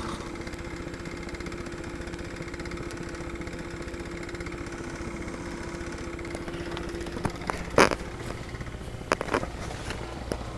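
An elderly woman snoring in her sleep: a steady droning snore, with a few sharp knocks about 7 to 9 seconds in.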